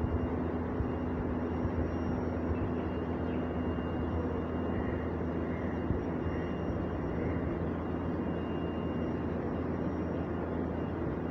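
Honda B16A 1.6-litre DOHC VTEC four-cylinder engine idling steadily, swapped into an old Honda Civic.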